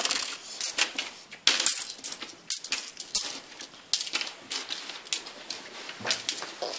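Loose coins clinking on a wooden tabletop as they are sorted and counted by hand, in many quick, irregular metallic clinks.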